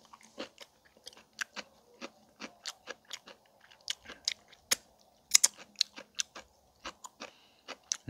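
Close-up chewing of a mouthful of fresh kimjang kimchi, the crisp salted napa cabbage crunching in irregular bites, loudest a little past the middle.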